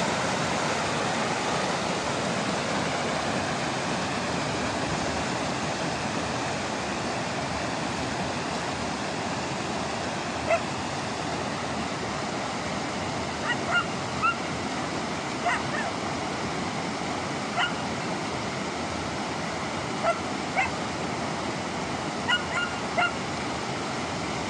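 Steady rush of a rocky mountain stream tumbling over boulders. From about ten seconds in, a German Shepherd puppy gives short, high yelps, about a dozen, singly and in quick pairs.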